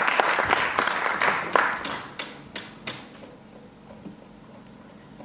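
Audience applause dying away: dense clapping thins out over about two seconds to a few last scattered claps, then the hall goes quiet.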